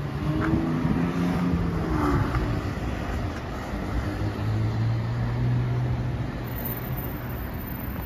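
Road traffic: car and truck engines passing close by. The engine notes shift in pitch over the first couple of seconds, then a steady low engine hum sets in about four seconds in.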